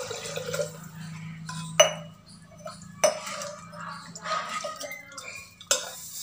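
Ladle stirring tomato masala in an aluminium pressure cooker, scraping against the pot, with three sharp metal-on-metal clinks.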